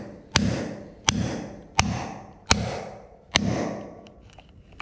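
Five hammer blows, about three-quarters of a second apart, on a steel top tool driving a red-hot flat bar down into a collaring anvil, each a sharp metallic strike with a short ring. The blows bend the hot bar into a U-shaped collar.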